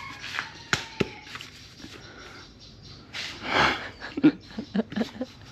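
Motorbike helmet being tried on and fastened: two sharp plastic clicks about a second in and a brief rustle, followed by a few short vocal sounds, the loudest part.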